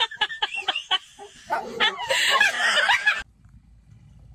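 A dog barking in quick, repeated barks, which cut off suddenly about three seconds in and leave only a faint low rumble.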